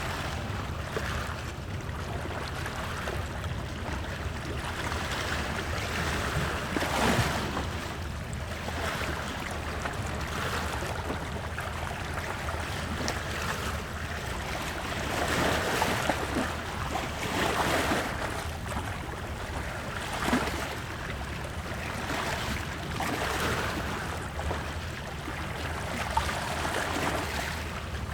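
Wood fire burning in a fireplace: a steady rushing noise that swells every few seconds, with occasional small crackles and pops.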